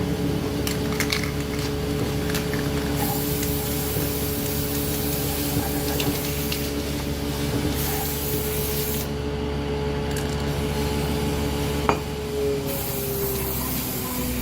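A machine running steadily with a hissing spray over it, and a few light knocks.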